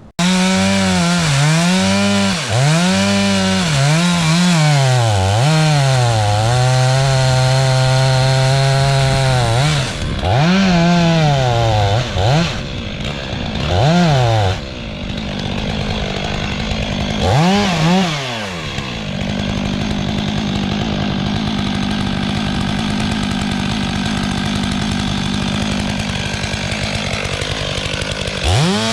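Two-stroke chainsaw felling a tree: the engine revs up and down in repeated bursts, holds at high speed for a few seconds around the middle of the first half, blips several more times, then runs steadily and more quietly before revving up again near the end.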